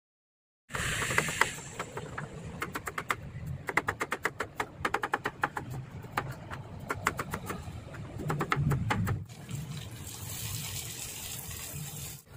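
A knife chopping on a plastic cutting board, quick runs of sharp taps, then after about nine seconds a steady sizzle of vegetables frying in oil in a pan.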